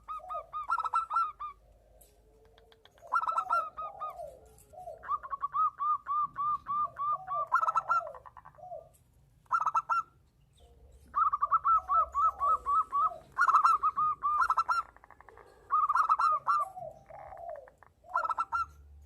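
Zebra doves (perkutut) cooing, two birds calling back and forth in repeated bouts. The bouts are rapid strings of short, clipped notes, overlapped by slower, lower coos, with brief pauses between bouts.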